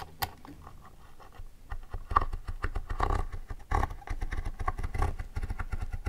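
Handling noise as a Fuse tool's heated tip is pressed and drawn along a metal ruler to melt-seal a plastic pocket page. There are irregular small clicks and scrapes over dull low thumps.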